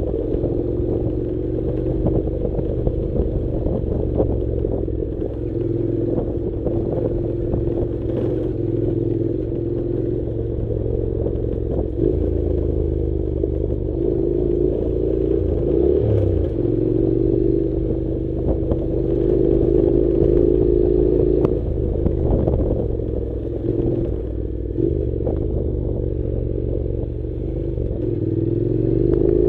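Honda NC700's 670 cc parallel-twin engine running steadily at a moderate pace while the bike rides over a rocky gravel track, with scattered clatter and rattles from the rough ground. The engine note wavers a little and rises near the end.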